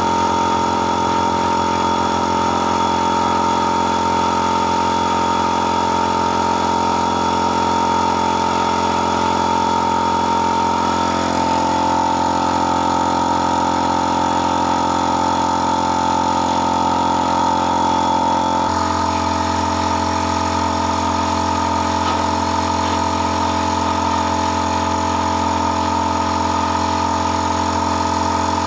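A motor running steadily with a constant hum, its tone shifting slightly about eleven seconds in and changing abruptly a little before twenty seconds.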